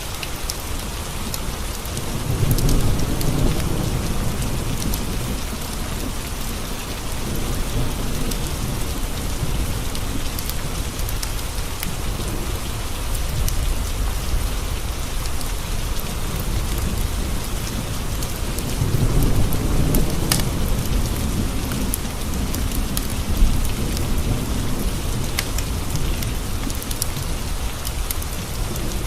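Steady rain tapping on window glass, with two low rolls of thunder, one about two seconds in and another just before the twentieth second, and scattered sharp ticks.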